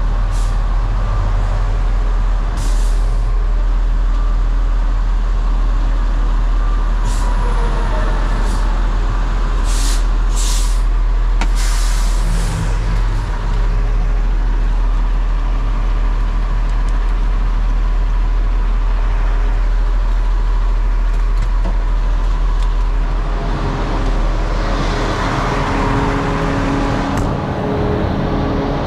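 Concrete mixer truck's diesel engine running with a steady low hum, broken by several short hisses of compressed air, typical of the truck's air brakes, about 3, 7 and 10 to 12 seconds in. Near the end a louder rush of noise swells up.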